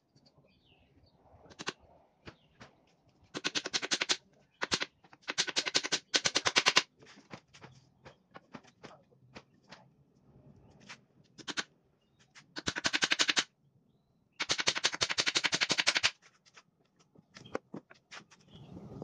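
Hammer driving nails into thin wooden battens: four runs of rapid, closely spaced blows, with scattered single knocks between them.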